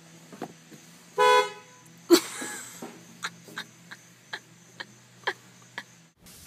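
A car horn gives one short toot about a second in. A sharp knock follows, then a run of lighter clicks.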